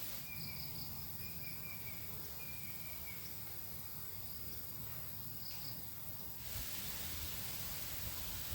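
Forest ambience: insects chirping in short repeated high trills over a steady hiss. The chirping cuts off suddenly about six seconds in, leaving only the hiss.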